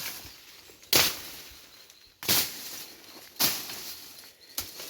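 A blade chopping through prickly brush: three sharp chops about 1.2 seconds apart, each with a rustle of cut vegetation trailing after it, and a lighter stroke near the end.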